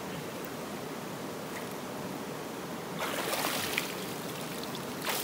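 Creek water running steadily over rocks, swollen after rain. About three seconds in the rush grows louder and brighter, and there is a short knock near the end.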